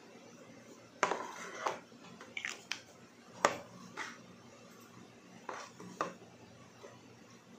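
Clicks and knocks of a small plastic pump bottle and its cap, and of its cardboard box, being handled and set down on a wooden table: a scattered run of sharp taps, the loudest about three and a half seconds in.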